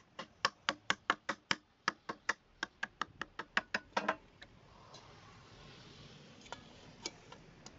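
Hammer tapping a plastic cooling fan onto the rear shaft of a 5.5 kW electric motor: about twenty quick light taps, some five a second, stopping about four seconds in as the fan seats. A couple of faint knocks follow near the end.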